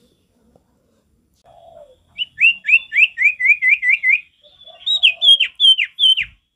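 Common iora singing: a quick run of about nine short down-slurred whistles, then four louder notes, each sliding steeply down in pitch. A soft low thump comes near the end.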